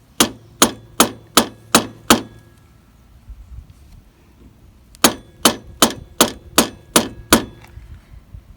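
Hammer tapping on metal in two runs: six quick ringing taps, a pause of about three seconds, then eight more. This is the distributor being driven down into its seat in the VW air-cooled engine.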